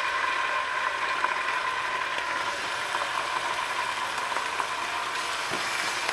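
Raw chicken breasts being laid into hot olive oil in a nonstick skillet, frying with a steady sizzle. A few light clicks of the tongs sound against the pan.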